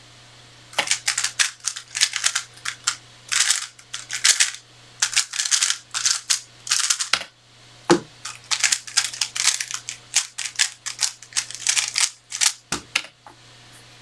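A 3x3 speedcube turned at speed: quick clusters of plastic layer clicks and clacks for about six seconds, a single thump about halfway, then more fast turning until shortly before the end.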